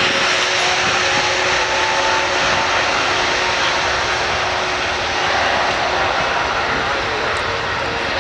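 Airbus A321neo's twin turbofan engines at takeoff thrust during the takeoff roll: a loud, steady jet rush with faint steady tones under it.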